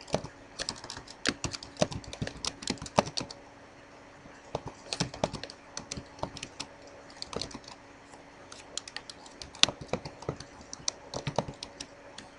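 Typing on a computer keyboard: quick runs of keystrokes broken by short pauses, about three and a half seconds in and again near eight seconds.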